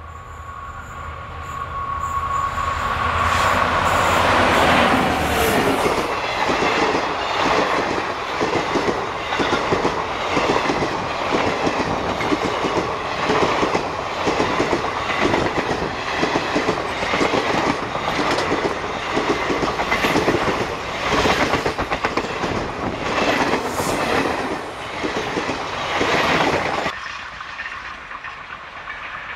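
A diesel-hauled express passenger train passing at speed. The locomotive's low engine rumble and a steady high whine come first as it approaches, then a long run of rapid clickety-clack of wheels over rail joints as the coaches rush past. The clatter stops suddenly as the last coach clears, leaving a fainter rumble from the departing train.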